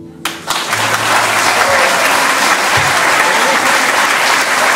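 Audience applause breaking out just as the final chord of a plucked-string ensemble dies away, swelling within a second and holding steady.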